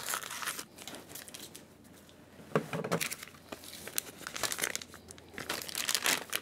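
Plastic vacuum-seal bag crinkling and crackling as it is cut open with kitchen scissors and peeled off a cured beef tenderloin. The crinkling is irregular, louder a little before halfway and again near the end.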